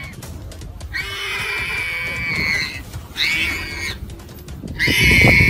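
Warthog squealing in distress while caught by a leopard: a long, high squeal lasting about two seconds, a short one after it, and another long squeal starting near the end, with scuffling noise underneath.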